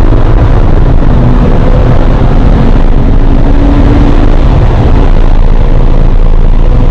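2017 Porsche 911 GTS's twin-turbo flat-six pulling hard as the car accelerates down a straight past 100 mph, under a loud, steady rush of wind and road noise.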